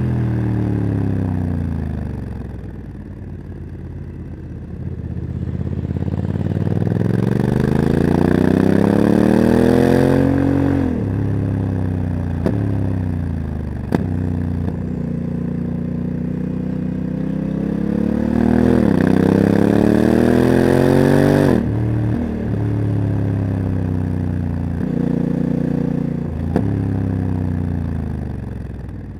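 Honda CRF1100 Africa Twin's parallel-twin engine, with a Leo Vince exhaust, under way on the road: the engine note falls on a closed throttle, then climbs long and steady under acceleration and drops sharply several times as it changes gear and comes off the throttle, with a few short clicks.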